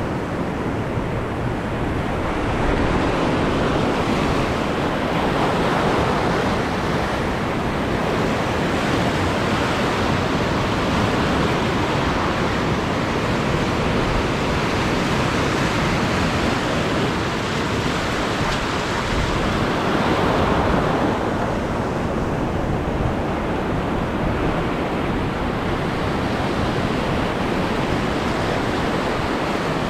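Sea waves washing steadily over a shallow reef, a continuous rushing noise that swells a little louder a few times, with a low rumble of wind on the microphone.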